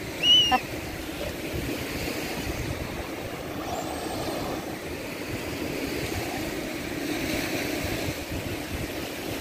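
Electric radio-controlled monster truck running across the sand, its motor mixed with breaking waves and wind on the microphone. A short high-pitched cry sounds just after the start.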